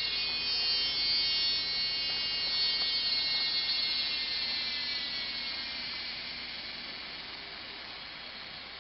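Forest insect chorus: a steady, high-pitched buzzing drone that slowly fades over the last few seconds.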